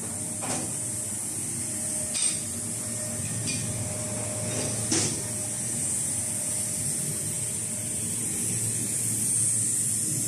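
6 kW CNC fiber laser cutting machine cutting steel plate: a steady high hiss over a low machine rumble, with four short sharp clicks in the first five seconds.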